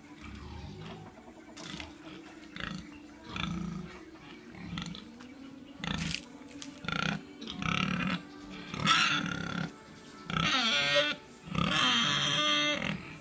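Pigs grunting in short bursts about once a second, then squealing loudly and at length in the last few seconds.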